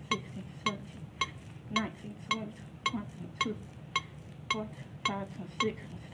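An AED trainer's CPR metronome beeping steadily, just under two short beeps a second (about 110 a minute), setting the pace for chest compressions. Fainter sounds of the CPR training manikin being compressed fall between the beeps.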